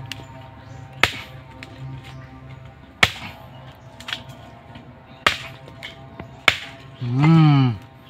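Machete chopping into a cluster of nipa palm fruit: four sharp strikes a second or two apart, over background music. Near the end comes a loud drawn-out voice that rises and falls.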